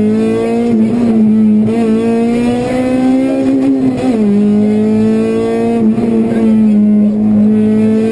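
Honda Civic Type-R rally car's four-cylinder engine running hard at high revs, heard from inside the cabin. Its pitch climbs slowly and drops sharply about four times.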